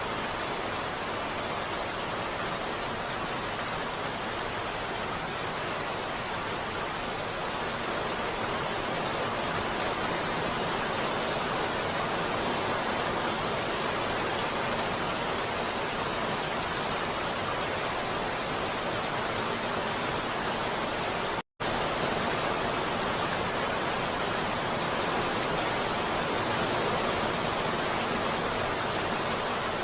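Heavy rain falling steadily, a dense, even hiss. About two-thirds of the way through, it cuts out to silence for a split second and comes straight back.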